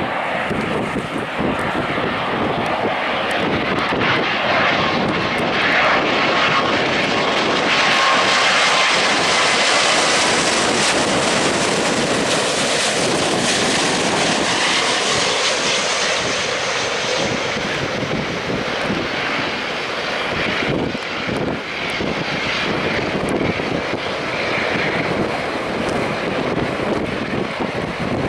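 Boeing 777-200 jet engines on a landing approach: a loud jet roar that builds as the airliner passes low overhead, loudest about halfway through, with a faint whine over it in the first half. The roar then eases off through the touchdown and landing roll.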